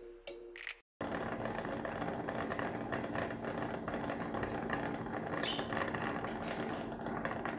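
Stainless steel pot with a towel-wrapped lid on a gas burner, making a steady, rapid rattling chatter from about a second in as the cake batter inside heats. This sound is the cue to turn the heat down and keep the lid shut.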